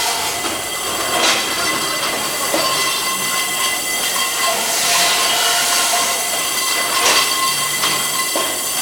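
Automatic circular saw pipe cutter running, with a steady high-pitched whine and metal screeching as it saws through four pipes at once. Short bursts of harsher noise come four times.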